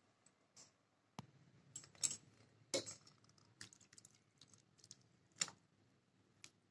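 Faint, scattered clicks and knocks of a utensil against a pan as soft chhena is scraped out onto a muslin straining cloth, the loudest knocks about two, three and five and a half seconds in.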